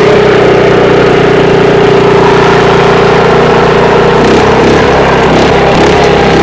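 Small Alkon petrol engine driving a water pump, running loud and steady close to the microphone; its note begins to waver unevenly about four seconds in.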